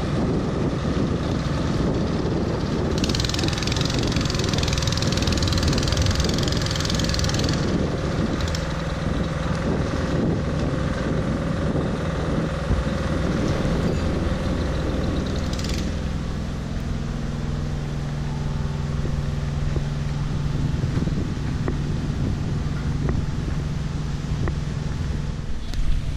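Wooden fishing boat's engine running steadily, with a spell of hiss a few seconds in. A steady low engine hum carries on, its pitch shifting about two-thirds of the way through.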